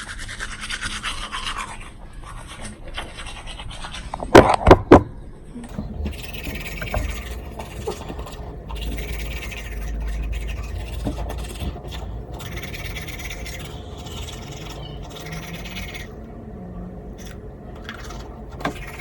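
Toothbrush scrubbing teeth in spells of brushing, with three sharp loud knocks about four seconds in.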